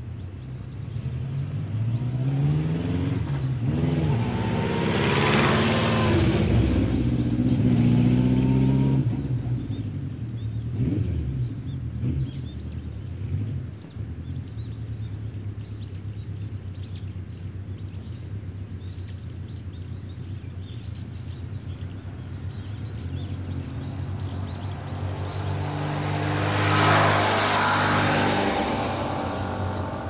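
Motor vehicles passing by, engine and tyre noise swelling and fading with a falling pitch: one about four to nine seconds in, another near the end. Small birds chirp faintly between the passes.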